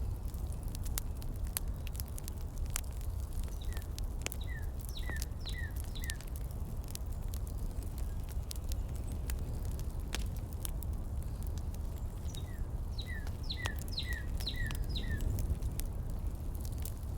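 Heater ambience: a steady low rumble with scattered crackles and clicks. Twice a bird calls a quick run of five or six short descending chirps.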